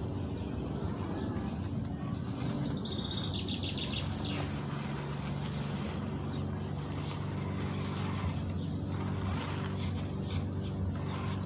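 Electric motor and metal-geared drivetrain of a small-scale RC crawler (MN78 Cherokee XJ) whining steadily as it drives over gravel and sand, with birds chirping a few seconds in and near the end.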